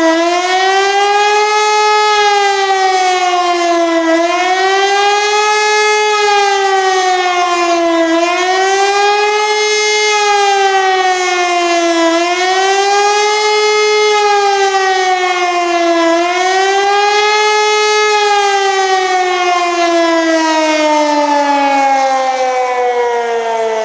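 HLS 273 pneumatic high-power civil-defence siren sounding a wail whose pitch rises and falls about every four seconds: the German 'Warnung' signal. About three-quarters in, the pitch stops cycling and glides steadily downward.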